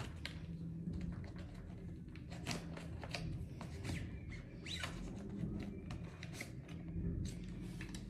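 Scattered light clicks and rustles of makeup products and their cases being handled and put away, over a low steady hum, with a brief squeak about halfway through.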